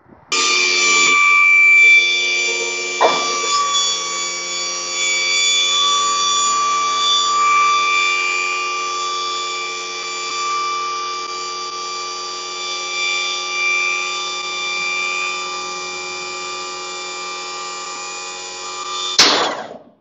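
AmeriDeck SuperDeck 3 hydraulic loading system's pump motor running with a steady whine while the deck is powered down to the ground. There is a knock about three seconds in, and the motor cuts off with a clunk near the end.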